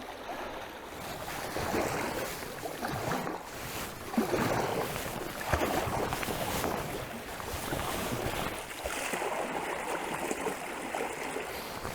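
River water splashing and rushing around a kayak as it is paddled, with a couple of sharp knocks about four and five and a half seconds in.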